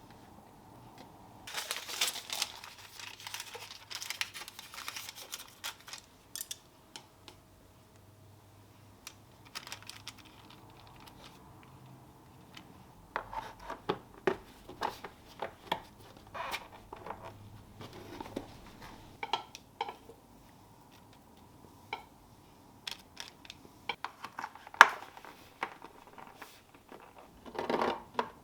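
Plastic packaging crinkling and rustling for a few seconds, then a run of light clicks and knocks as food and containers are handled.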